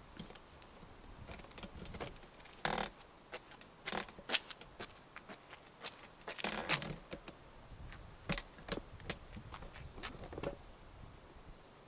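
Faint, irregular clicks and rustles, a handful of them louder and scattered through the middle, like handling noise.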